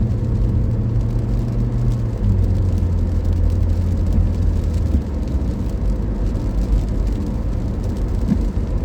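Car cabin noise while driving: a steady low engine and road drone, which drops slightly in pitch about two seconds in and eases a little about five seconds in.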